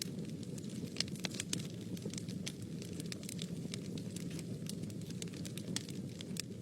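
Wood fire burning in a fireplace: a steady low rumble of flames with many sharp, irregular crackles and pops throughout.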